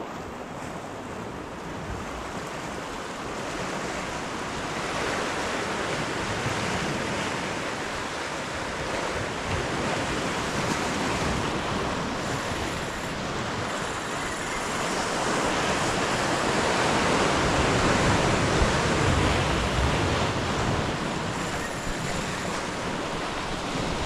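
Sea surf breaking and washing over rocks, with wind buffeting the microphone. The wash swells to its loudest about two-thirds of the way through, then eases.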